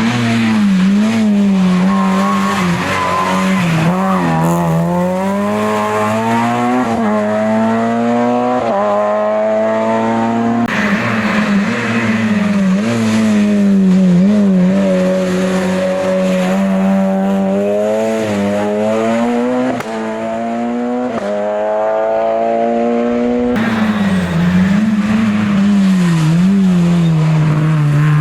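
Race car engines in hill-climb competition, accelerating hard: the engine note climbs and drops sharply at each gear change, again and again. The sound changes abruptly twice, about 11 and 24 seconds in.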